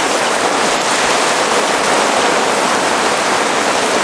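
Heavy thunderstorm rain pouring down in a steady, dense hiss.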